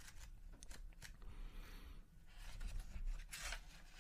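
Pages of a paperback book being flipped through by hand: soft paper rustling with small flicks, with a longer riffle of pages about a second in.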